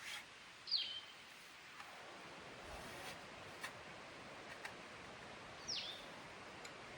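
A bird calling twice, about five seconds apart, each call a short, sharp chirp sliding downward, over faint clicks and rustling.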